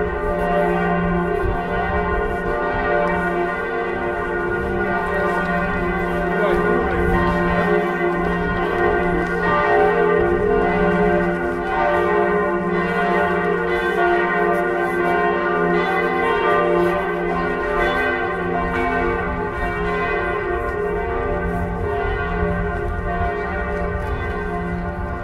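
Several church bells ringing together in a continuous peal, their steady tones overlapping and sustaining without a break.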